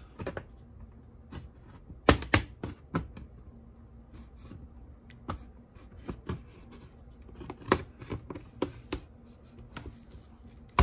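Pry tool working along the seam of an HP 15 laptop's bottom cover: scattered sharp clicks and snaps as the case's clips release, loudest about two seconds in and again near eight seconds.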